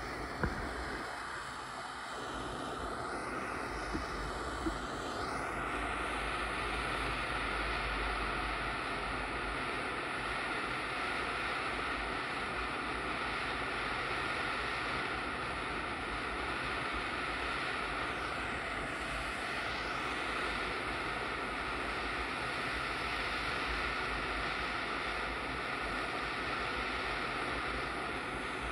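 Gas soldering torch burning with a steady hissing roar while heating a joint for silver soldering. A few light clicks come in the first five seconds.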